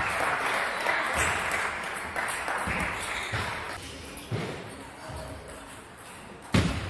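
Table tennis ball clicking sharply against bat, table or floor about six times at irregular intervals, over a haze of spectator voices that dies away about four seconds in.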